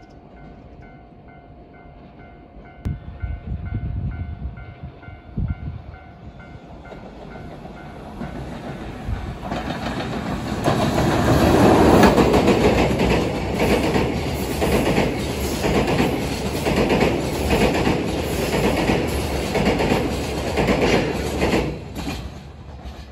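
A train passing close by, its wheels clattering rhythmically over the rail joints. It builds up about a third of the way in and drops away sharply near the end. A pulsing ringing tone sounds in the first few seconds.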